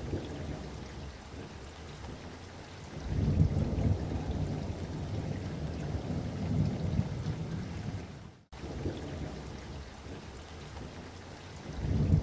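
Low rumbling noise that swells and fades, with a brief sudden dropout about eight and a half seconds in.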